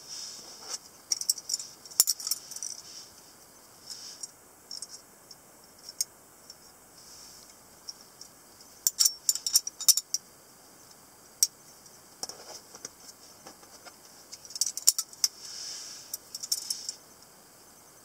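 Metal-handled butterfly knives (balisongs) being handled and opened: the handles and latch click and rattle against each other in several short clusters, with pauses between.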